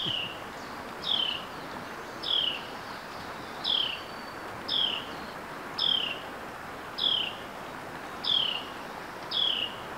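A bird repeating a short high call that drops in pitch, nine times at about one-second intervals, over the steady rush of a fast-flowing river.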